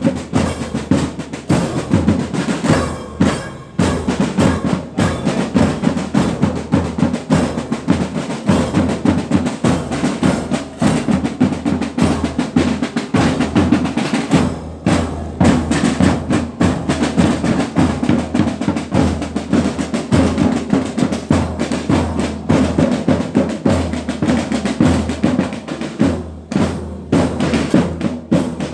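Marching band playing while parading: snare drums, bass drum and cymbals keep a fast, steady marching beat with snare rolls, the drums the loudest part.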